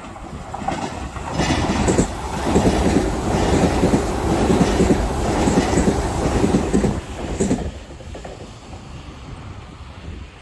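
JR Kyushu 305 series electric train passing close by, its wheels clattering on the rails. The sound builds over the first two seconds, stays loud for about five, then falls away quickly as the train clears.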